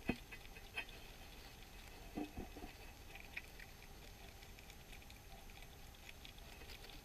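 Hedgehog eating right beside the microphone: faint scattered clicks and crunches of chewing. There is a sharp knock at the very start and a few soft knocks about two seconds in.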